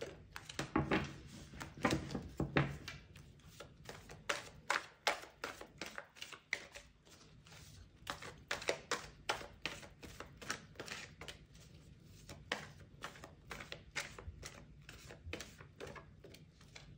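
A deck of tarot cards being shuffled by hand, the cards slapping and clicking against each other in a rapid, irregular patter of several taps a second.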